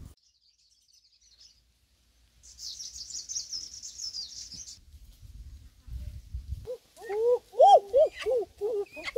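A small bird chirping and warbling for about two seconds, then, from about seven seconds in, a run of loud, short hooting calls that rise and fall in pitch.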